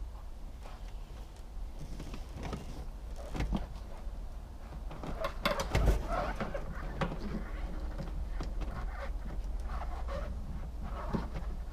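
Hands working a rubber firewall boot and wiring harness loose: irregular rubbing and scraping of rubber and plastic, with scattered clicks and a sharper knock a little before the middle.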